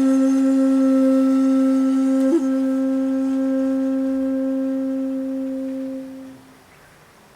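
Shakuhachi bamboo flute holding one long low note, breathy and steady, with a quick finger flick about two seconds in. The note then tapers away a little after six seconds, leaving quiet room tone.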